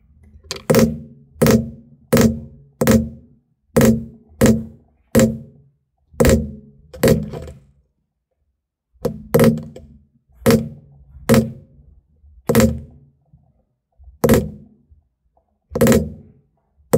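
Mallet striking a basket-weave leather stamping tool, driving it into holster leather laid on a granite slab: sharp knocks about one and a half a second, with a pause of about two seconds midway as the stamp is moved along the pattern.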